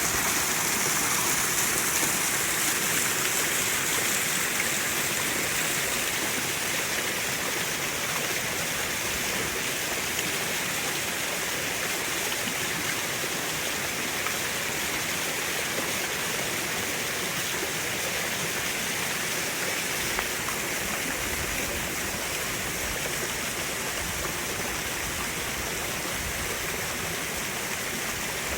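Steady rush of falling water from a waterfall, an even hiss with no breaks. A low rumble joins underneath about twenty seconds in.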